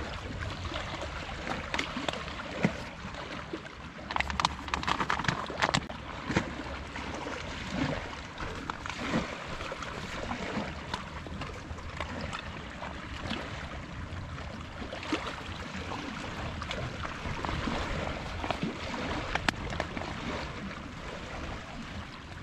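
A steady rush of wind and lapping lake water, with the crinkle of a dried-food pouch as rice is tipped from it into a metal mug, rustling most strongly a few seconds in, and later water poured from a bottle into the mug.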